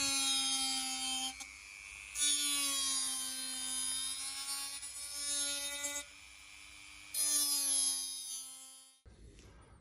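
Corded rotary tool with a cut-off wheel running at a steady high whine and cutting into a propeller spinner, in three spells of harsh grinding hiss. The tool stops about nine seconds in.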